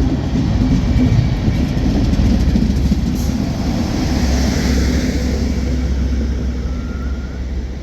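A train passing close by: a loud, steady rumble with hissing wheel and rail noise that swells in the middle and eases slightly near the end.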